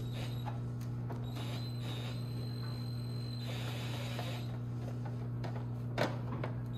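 Cordless drill driving a screw into the plastic back cover of a flatscreen TV: the motor runs with a high whine for about two seconds, then a short rougher spell. A sharp click comes near the end, over a steady low hum.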